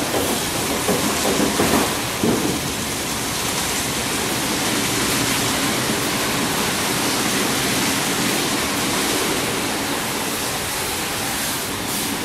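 Rotating brushes of an automatic car wash scrubbing a car under water spray: a steady rushing wash of water and bristles, more uneven for the first couple of seconds before it settles.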